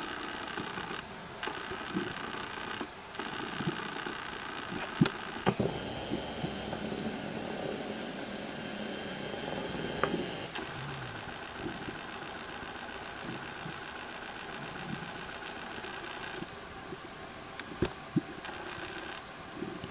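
Underwater recording: a steady mechanical hum with hiss, changing in tone about halfway through, with a few sharp clicks scattered across it.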